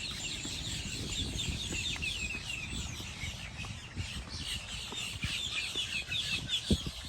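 Many birds chirping rapidly together in a dense, continuous chatter of short, high chirps, over a low rumble.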